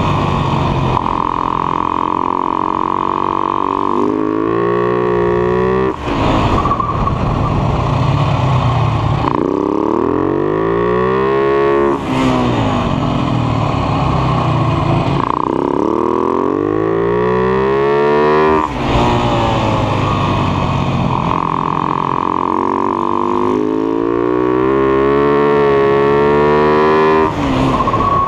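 Husaberg FS 570 supermoto's single-cylinder four-stroke engine at racing pace. The revs climb and then fall away sharply about four times as the bike accelerates and slows through the corners, heard from the bike's own onboard camera.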